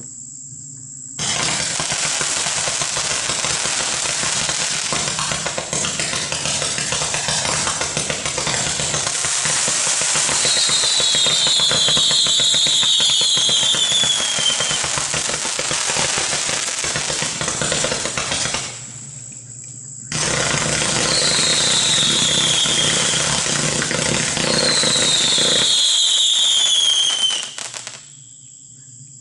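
A 300-shot consumer firework cake firing a dense rapid-fire barrage of shots with crackle, with whistles falling in pitch mixed in. It pauses briefly about two-thirds through, then fires again and stops near the end.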